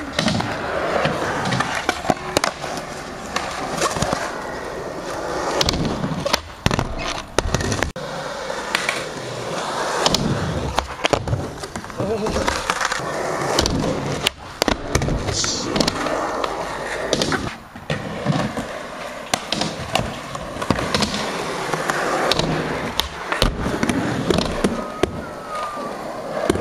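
Skateboard wheels rolling over concrete and up the ramps, with many sharp clacks and knocks as the board pops, hits the ramps and lands.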